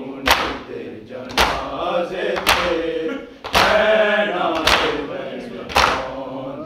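Voices chanting a noha lament, with a sharp beat of chest-beating (matam) in time with it, six strikes about a second apart.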